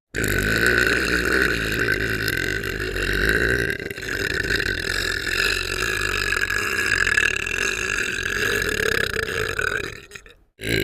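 Cartoon voice of Squidward burping: one very long, drawn-out burp lasting nearly ten seconds, with a brief dip about four seconds in, then cutting off shortly before the end.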